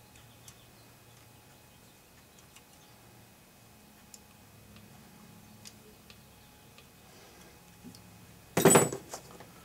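Faint small clicks and taps of needle-nose pliers working at the carburetor hoses and linkage of a small Tecumseh engine, with one loud metallic clatter near the end.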